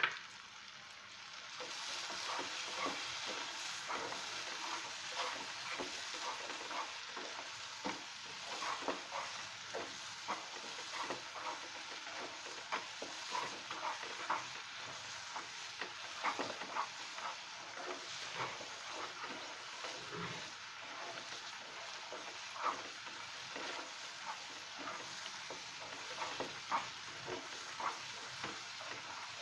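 Badam halwa mixture (ground almonds, milk and sugar in ghee) sizzling in a nonstick frying pan while a plastic spatula stirs and scrapes it in many short strokes. The sizzling and stirring pick up about a second and a half in.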